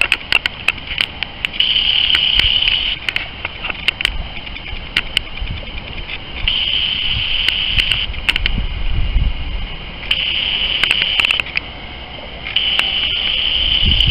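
An insect trilling in four bursts of about a second and a half each, separated by pauses of a few seconds. Scattered sharp clicks and a low rumble run underneath.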